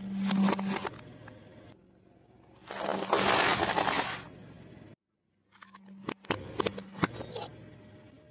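A car tyre rolling over objects and crushing them, in three short cuts. First a plastic electric fly-swatter racket crackles and snaps under the tyre. Then comes a loud, dense crunch lasting about a second and a half, and later a run of sharp cracks and snaps.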